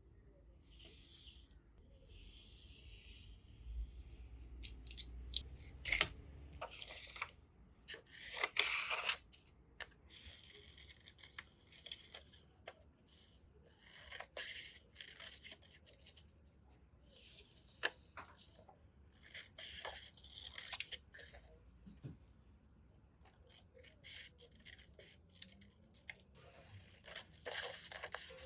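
Paper being handled and worked by hand: crisp rustling and scratchy strokes with scattered sharp clicks, loudest about six and nine seconds in.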